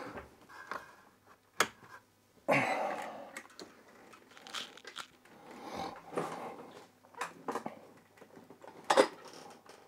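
Handling noises as a magnifier lamp with an articulated arm is fetched and set up on a desk: scattered sharp clicks, a scraping rustle about two and a half seconds in that fades over about a second, and a knock near the end.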